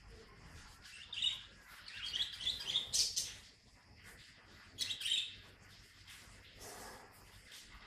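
High-pitched chirping calls in short bouts: one about a second in, a busier run between two and three seconds in, and another about five seconds in.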